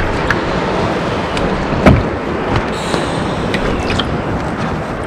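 Water rushing and slapping against the hull of an Artemis sailing canoe under way on a choppy sea, with several short knocks of waves against the hull, the sharpest about two seconds in.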